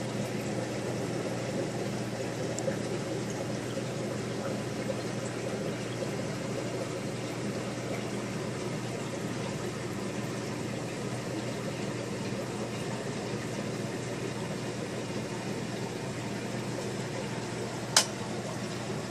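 Aquarium filter running: steady water and air noise with a low hum. A single sharp click near the end.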